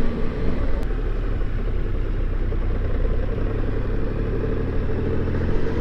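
Motorcycle engine running steadily under way on a climbing road, with wind and road noise.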